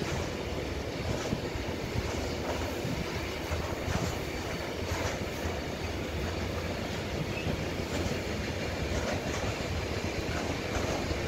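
Freight train of container and tank-container wagons rolling past: a steady rumble of wheels on rail, with scattered clicks of the wheels over the track.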